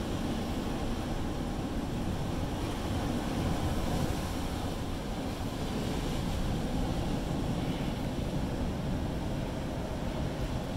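Ocean surf washing and foaming against a sandstone rock shelf, a steady low rush of breaking water, with wind rumbling on the microphone.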